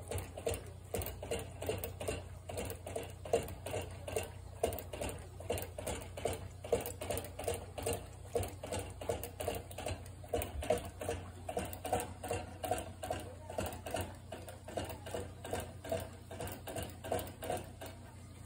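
American Cocker Spaniel drinking from the spout of a crate-mounted water bottle: quick, even licking and clicking at the spout, about four licks a second, stopping near the end.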